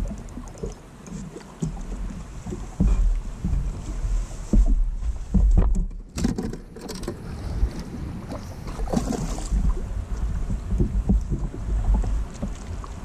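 Wind rumbling on the microphone over water lapping at a boat hull, with scattered knocks and bumps on the boat deck, several close together around the middle.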